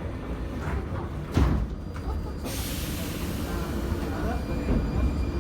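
Train running on the rails: a steady low rumble, with a knock about a second and a half in and a hiss joining about halfway through.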